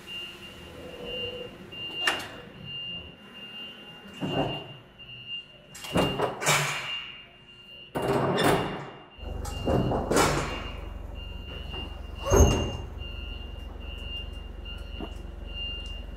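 M36 tank destroyer's road wheels rolling backward off the end of its laid-out steel track: a run of separate scraping, grinding rolls, each lasting about a second. A low rumble joins about nine seconds in.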